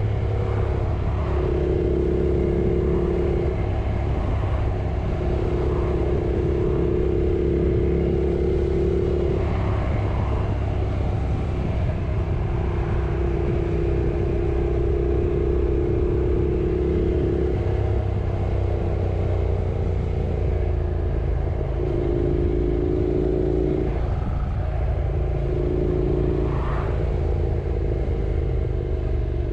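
Yamaha R6 sport bike's engine running while riding, over a constant low rumble; its steady tone holds for a few seconds at a time, breaks off and comes back several times.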